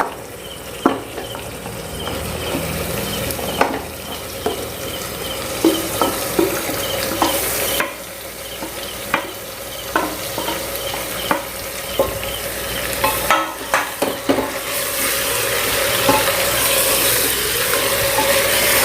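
Yogurt-marinated chicken sizzling in hot oil in a pressure cooker while a spatula stirs it, with repeated short clicks and scrapes against the metal pot. The sizzle grows louder over the last few seconds.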